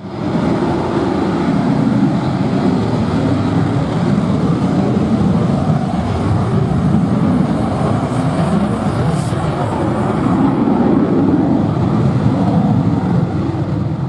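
Eurofighter Typhoon jet engines running as the fighter taxis past, a steady, loud low rumble.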